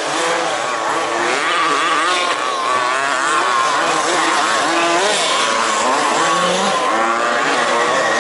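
Several 1/5-scale RC off-road race cars' small two-stroke petrol engines revving up and down together, their high buzzing pitches overlapping and constantly rising and falling as the cars race around the track.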